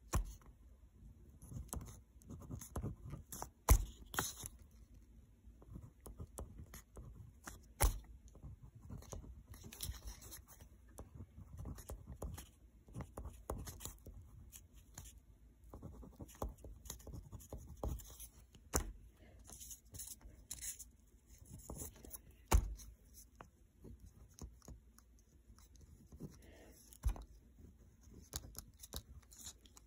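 Ballpoint pen scratching across paper in short strokes while a note is written by hand, with a few sharp knocks scattered through.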